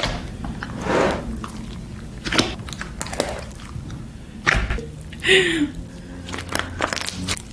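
Hands squishing and pressing slime, giving scattered sticky clicks, pops and smacks, with a louder squelch about five seconds in.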